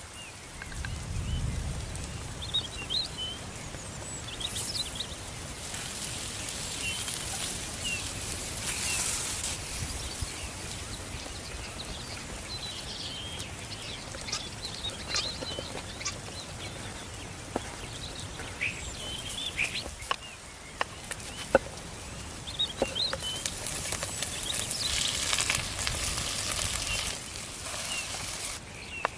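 Small birds chirping over outdoor ambience, with stretches of hissing that start and stop abruptly and a few sharp knocks in the second half.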